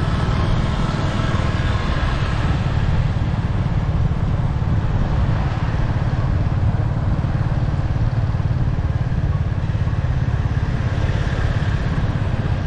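Riding along a street: steady wind rumble on the microphone with engine and road noise from the moving vehicle.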